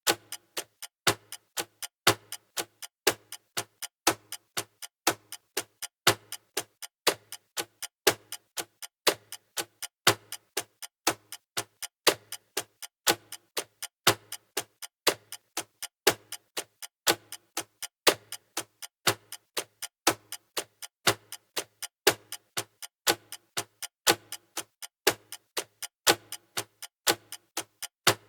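Clock ticking steadily at an even pace, louder and softer ticks alternating.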